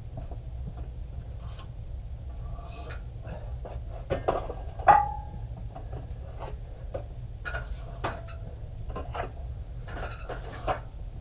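Iron weight plates and a barbell being handled, with scattered knocks and scraping and one loud metallic clang about five seconds in that rings briefly.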